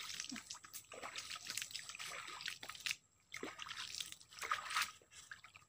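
Faint trickling and small splashes of shallow water, with little ticks scattered through it; the sound cuts out briefly about three seconds in.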